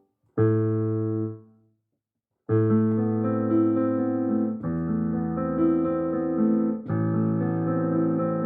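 Piano music: a chord struck and left to die away, a second or so of silence, then a run of sustained chords that change about every two seconds.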